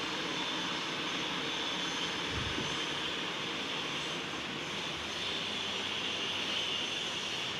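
Steady airy hiss of room noise, with a faint low thud about two and a half seconds in.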